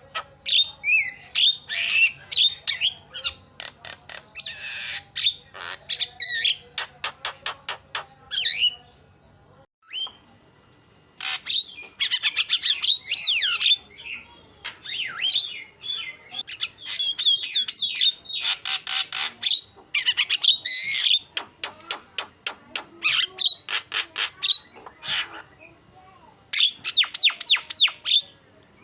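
Javan myna chattering: phrases of rapid clicks, harsh squawks and whistled glides, breaking off briefly about a third of the way in and again near the end.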